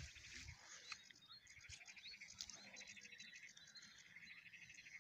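Faint birdsong: small birds chirping with quick trilled notes and short sweeping calls.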